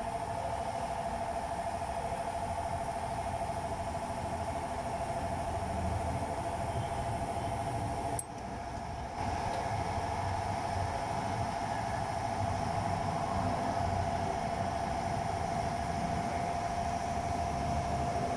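A steady mid-pitched hum over a low rumble, dipping for about a second around eight seconds in.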